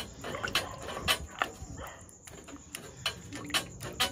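Plastic spoon stirring curry chicken feet in a nonstick pot, knocking and scraping against the pot in a series of irregular clicks.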